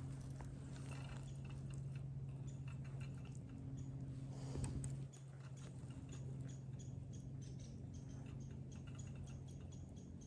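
Fishing reel being cranked slowly, a light, even clicking of about three ticks a second as the line is brought in, over a steady low hum. A brief rustle about halfway through.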